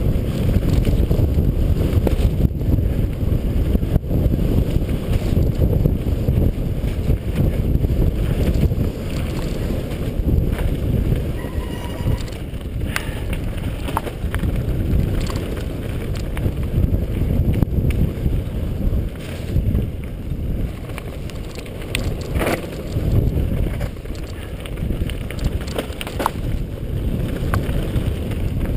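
Mountain bike descending a loose gravel trail at speed: wind buffeting the action camera's microphone over the rumble of the tyres, with scattered sharp clatters and knocks as the bike rattles over stones.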